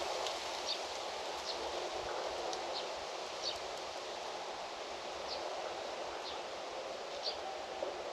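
Outdoor rural ambience: a steady rustle of wind in foliage, with a small bird giving short high chirps about once a second.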